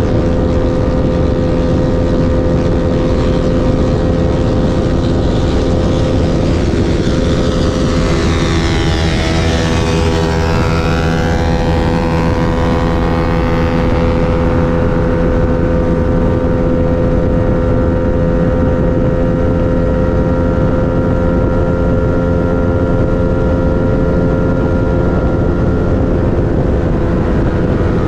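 Motorcycle engine running steadily at cruising speed. Between about 8 and 14 seconds in, another vehicle's sound sweeps past close by.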